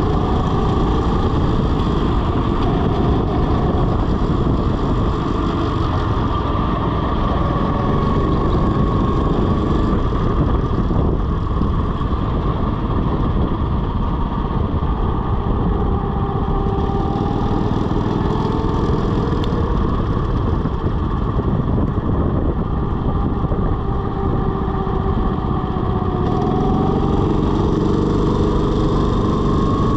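Go-kart engine running at speed around a track, with a dense rumble of wind and chassis noise at the chest-mounted camera. The engine's note slowly rises and falls with the throttle through the corners and climbs again near the end.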